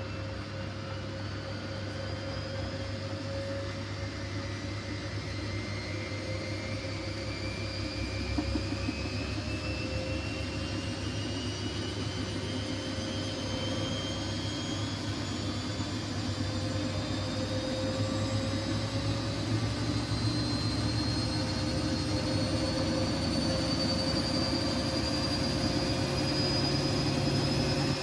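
Siemens washing machine with its drum motor speeding up, a whine rising slowly and steadily in pitch and growing louder over a low hum, as the drum accelerates toward spin.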